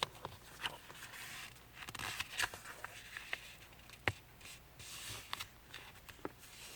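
A sheet of paper being folded and creased by hand: soft rustling and crinkling with scattered small ticks, one sharper click about four seconds in.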